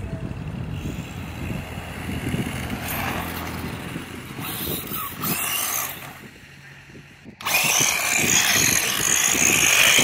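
Electric motor and tyres of a 1:16 off-road RC truck whining and rolling over asphalt as it drives. The sound dips about six seconds in, then comes back much louder about seven and a half seconds in as the truck runs close by.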